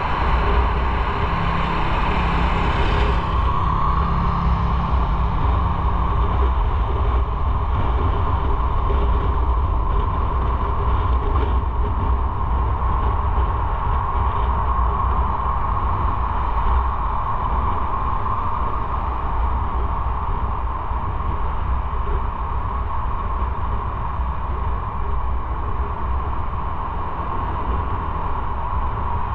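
Motorcycle running at a steady pace while riding, with the engine and wind and road noise. The sound turns duller about three seconds in.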